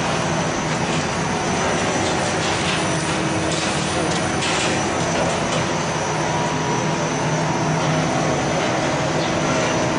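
Snack-chip production machinery running steadily, a continuous mechanical hum with a few steady low tones under an even hiss, with a brief louder hiss about four seconds in.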